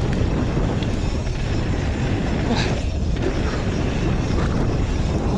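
Mountain bike descending a dirt trail at speed: steady wind buffeting on the camera's microphone over the low rumble of the tyres on the trail.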